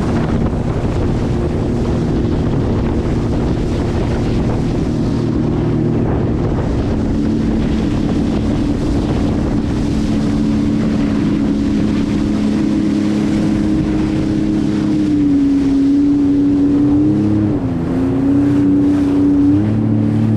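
Jet ski engine running steadily at speed over the water, with wind buffeting the microphone. About 17 seconds in the engine note dips briefly, then comes back up.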